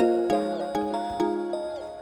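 Background music: a gentle melody of struck notes, a new note about every half second.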